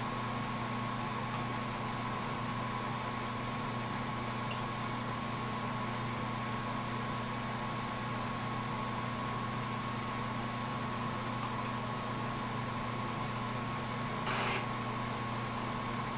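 Steady hiss and hum at a lampworking bench with the glass torch burning, a constant drone under it, and a short burst of louder hiss near the end.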